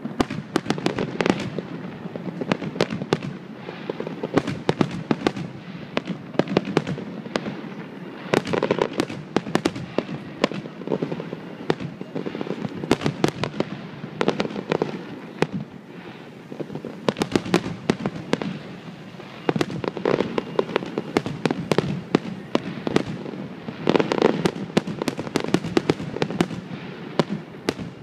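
Aerial fireworks going off continuously: a rapid, uneven run of bangs and crackles from bursting shells, thickening into dense volleys several times.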